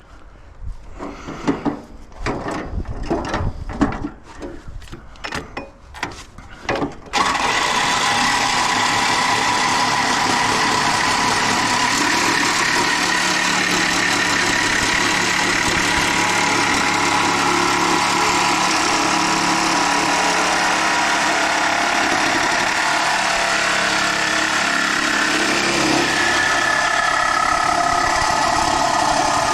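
Irregular knocks and clatter, then about seven seconds in a small engine starts running suddenly and keeps running steadily and loudly.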